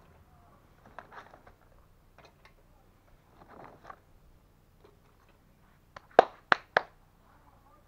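Charcoal briquettes knocking and crunching lightly as they are set by hand onto the wire grate of a small kettle grill. About six seconds in come three sharp, loud clicks in quick succession.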